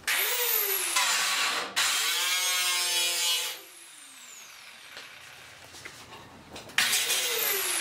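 A power tool whirring in two bursts, the first lasting about three and a half seconds and the second starting near the end, its pitch falling as it winds down.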